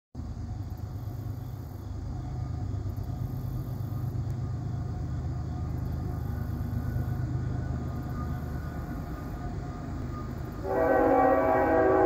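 Low rumble of an approaching diesel freight locomotive, slowly building. Near the end the locomotive's air horn starts blowing loud and steady.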